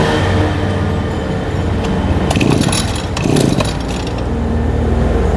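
Small two-stroke engine of a used Echo brush cutter running at low speed, with bursts of metallic clattering a couple of seconds in.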